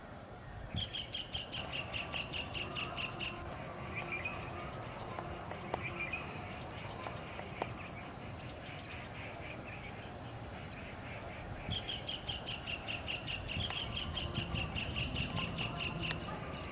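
Outdoor ambience with a fast trill of high chirps, about eight a second, heard twice for a few seconds each, over a faint steady high tone.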